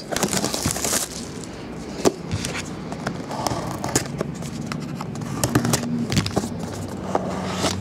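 Plastic shrink-wrap on a trading-card box crinkling as it is cut open with scissors and pulled off, with scattered sharp clicks and scrapes of the scissors and cardboard box. The crinkling is densest in the first second.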